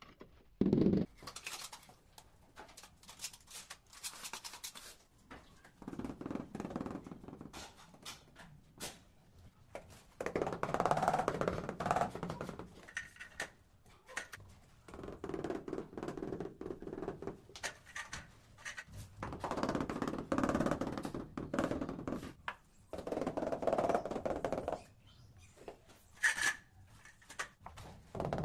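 Ceramic tile setting: large ceramic tiles clinking, knocking and scraping as they are laid and pressed into mortar, with irregular taps and several stretches of scraping a few seconds long.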